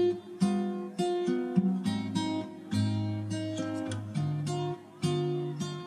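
Background music on acoustic guitar: plucked notes and chords, one every half second or so, each ringing out and fading, with a brief pause about four and a half seconds in.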